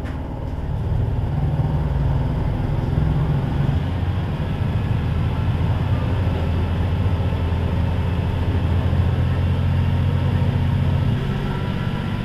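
KiHa 40 series diesel railcar's engine running, a low steady drone that grows louder about a second in and drops back near the end.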